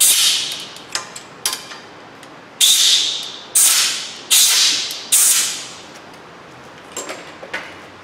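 Compressed-air blowgun fired in short hissing blasts into a broken exhaust-stud hole in a Ford V10 cylinder head, clearing out crushed bits of the old stud. There is one blast at the start, then four in a row a few seconds in, with a few light metal clicks between them.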